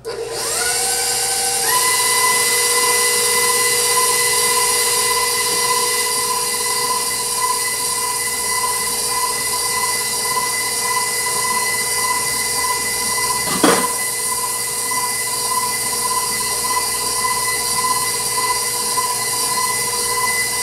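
Stand mixer motor running a flat beater through thick cake batter of butter, sugar and eggs. It winds up in pitch over the first couple of seconds to a steady high whine, with one brief knock about two-thirds of the way through.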